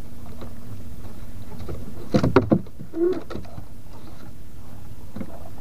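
A few quick knocks against the small wooden boat as the handline is thrown out, over a steady low hum.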